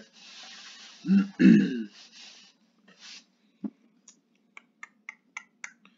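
A man clears his throat in two short rasping pushes after a breath. Then comes a run of about eight light, sharp clicks over the last two seconds.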